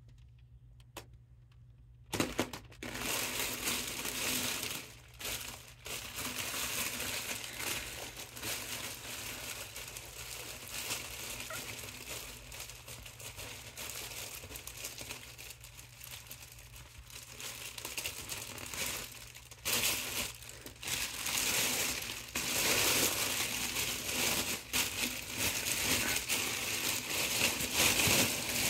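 Mylar foil balloon crinkling and rustling as hands squash the air out of it to deflate it, starting about two seconds in and going on unevenly, louder and softer by turns.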